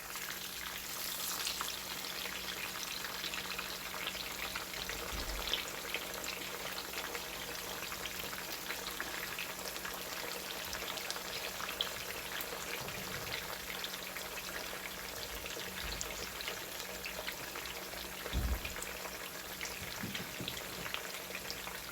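Food frying in hot oil in a pan: a steady sizzle with many small crackles and a few soft low knocks.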